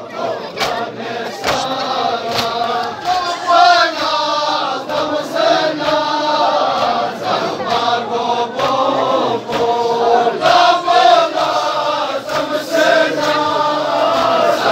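A congregation of men chanting a Balti-language noha (Shia lament) together, with sharp hand slaps on chests (matam) keeping a steady beat a little faster than once a second.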